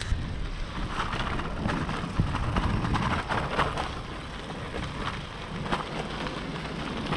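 Riding noise from a bicycle on a city street: wind on the microphone and rolling road noise, with scattered short rattles and clicks.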